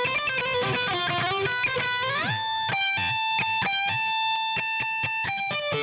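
Electric lead guitar playing a melodic line, with a note bent upward about two seconds in, then short choppy notes. It runs through an emulated RCA BA-6A tube compressor with compression switched off and the input driven hard, so only the tube amplification's coloration is added, thickening the lows.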